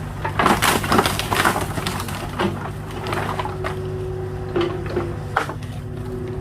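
Excavator engine running steadily while wooden pallets crack and splinter under its bucket, with a quick run of cracks and crunches in the first two seconds and a few single snaps later.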